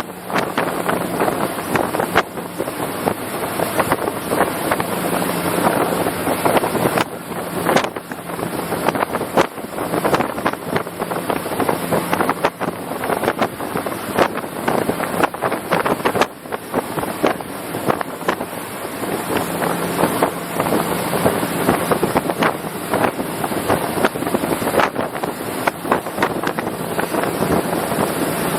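RIB under way at speed: wind rushing over the microphone in constant sharp gusts, with the boat's engine humming steadily underneath.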